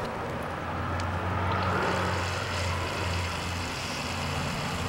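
Small centrifugal pumps running with a steady hum as they feed baking-soda water and vinegar into the glass reaction chamber, over an even hiss of the foaming CO2-filled mixture spraying out of the nozzle.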